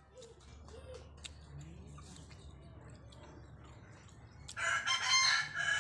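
Faint scattered clicks, then about four and a half seconds in a rooster crows loudly and harshly for about a second and a half.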